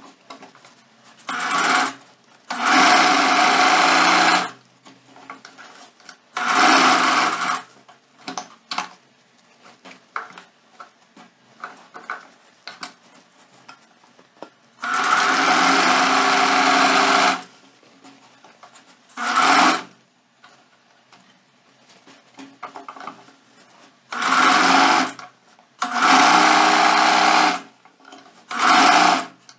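Singer Facilita domestic sewing machine stitching elastic onto a waistband in about eight short runs, each lasting from under a second to nearly three seconds. Between the runs the machine stops, and fabric is handled and pins are pulled, with light clicks and rustling.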